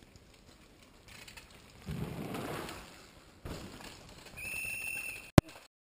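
Downhill mountain bike passing on a dirt trail, a rush of tyre noise that swells and fades. Then one steady, high whistle blast of about a second, and a sharp click near the end.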